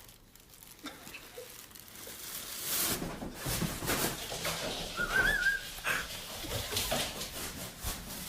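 A pet animal making a brief high, wavering whine about five seconds in, among scattered knocks and rustles.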